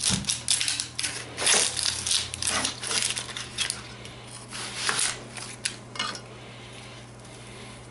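Chef's knife slicing through an onion and knocking on a plastic cutting board in irregular strokes, busiest in the first few seconds, with the dry onion skin rustling as it is peeled off; a few sharp knocks follow near the end as the knife is set down.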